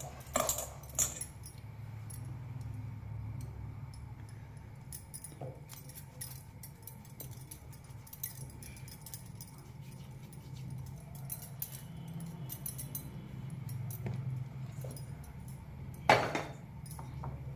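Bangles on the wrists clinking lightly as hands knead dough in a steel plate, over a steady low hum. A single loud clatter about sixteen seconds in.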